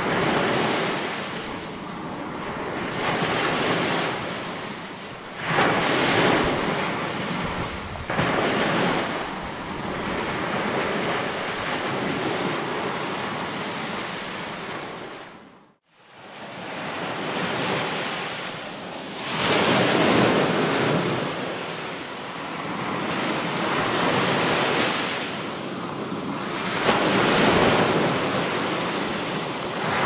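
Ocean surf: waves breaking and washing up a beach, the rush swelling and ebbing every two to four seconds. About halfway through, the sound drops away to silence for an instant and then comes back.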